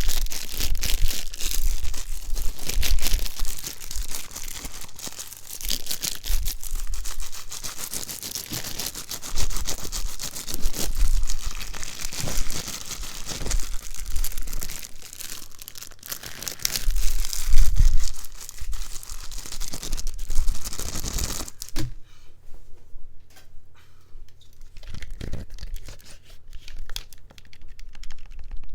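Crinkly material being crumpled and scrunched close to the microphone: dense crackling that stops abruptly about 21 seconds in, followed by a few quiet scattered taps.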